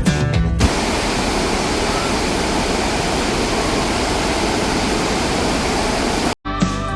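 Steady rush of a waterfall: even, unbroken water noise that cuts in sharply just after a snatch of background music and stops abruptly near the end, before the music resumes.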